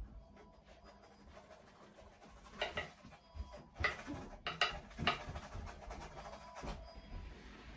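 A paintbrush scraping acrylic paint over a canvas coated with gritty sand texture paste, in several short, faint scratchy strokes with pauses between them.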